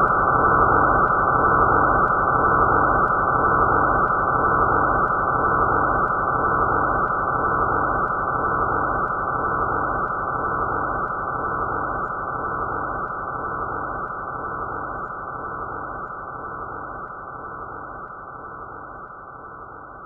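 Space boom sound effect, the long tail after the hit: a deep, muffled noise with nothing high in it, fading slowly and steadily.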